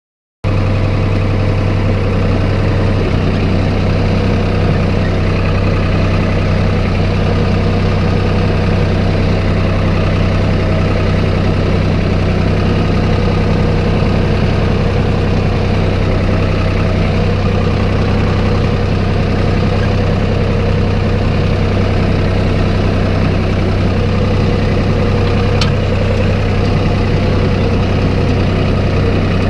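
Vehicle engine idling steadily with a deep, even hum. The sound cuts in abruptly about half a second in.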